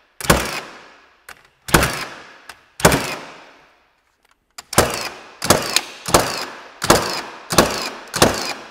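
Milwaukee M18 battery-powered 21-degree framing nailer firing 3-inch ring-shank nails into dense pallet oak. There are nine sharp shots, each fading out over most of a second: three spaced a second or more apart, then after a short pause six in quick succession about 0.7 s apart.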